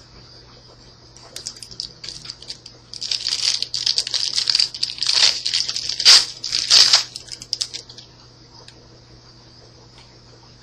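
Yu-Gi-Oh booster pack's foil wrapper crinkling and being torn open by hand: rustling starts about a second in, is loudest in the middle, and stops a few seconds before the end. A steady low electrical hum sits underneath throughout.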